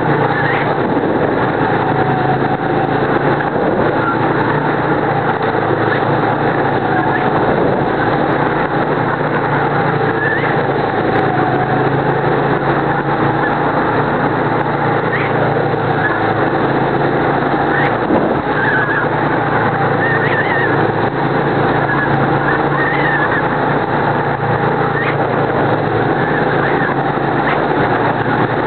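Go-kart engine running hard, heard on board the kart, its pitch wavering a little with speed, with brief high chirps here and there.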